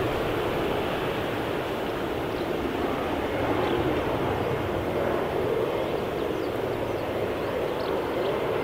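Airplane engine noise: a steady rushing sound, strongest in the low middle range, holding level without a clear rise or fall.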